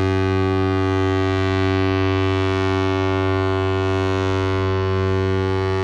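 Container ship SPIL NIRMALA's horn sounding one long, steady, low blast, rich in overtones.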